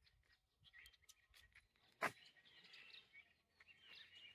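Near silence with faint bird chirps and a single sharp click about two seconds in.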